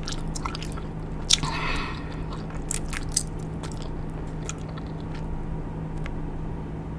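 Big League Chew bubble gum being chewed and smacked: short wet clicks and smacks, several in the first few seconds, then fewer and fainter.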